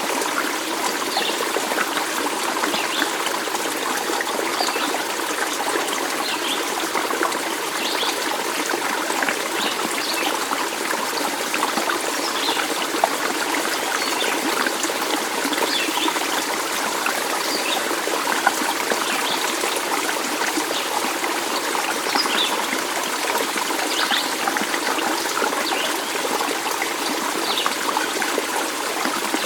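Running water in a small stream, trickling and babbling steadily: an even rush with many small bright gurgles and bubbles scattered through it.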